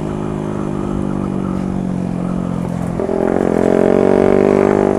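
Motorcycle engine running at a steady pitch while riding, then accelerating from about three seconds in, its pitch rising steadily.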